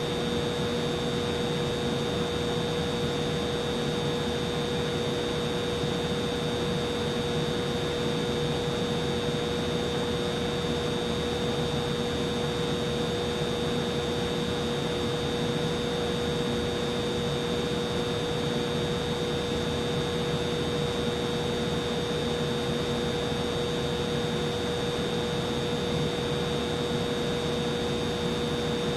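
Humidifier running: a steady whir with a constant hum and a fainter high whine.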